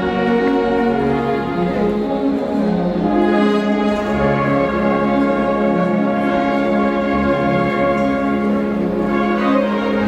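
A Mixe philharmonic band, a brass and woodwind ensemble, playing a slow piece in long, held chords.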